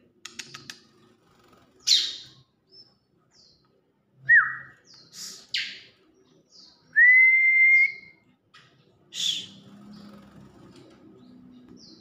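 Caged bar-winged prinia (ciblek) giving short, sharp high chirps, with two clear whistled notes among them: a brief one about four seconds in and a long steady one about seven seconds in.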